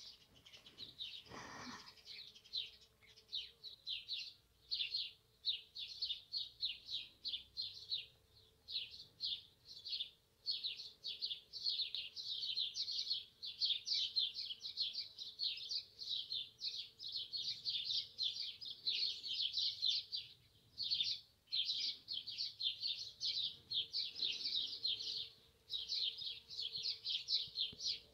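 Small birds chirping rapidly and almost without a break, several high chirps a second in long runs with short pauses, over a faint steady hum.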